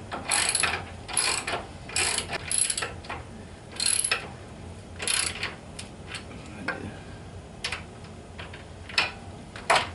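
Ratchet wrench tightening the bolts that hold a bench vise to a table. The ratchet clicks in short runs, a stroke every half second to second at first, then sparser single clicks near the end.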